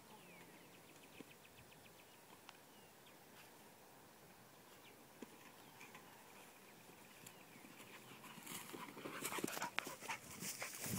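A pit bull coming up through tall grass close by, the grass rustling with small clicks from about eight seconds in. Before that there is only a faint outdoor background.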